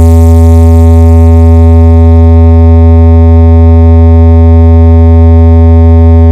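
A single deep synthesized bass tone, very loud and held perfectly steady with a stack of even overtones. It is the kind of 'vibration' bass test tone used in DJ competition sound checks to shake the speakers.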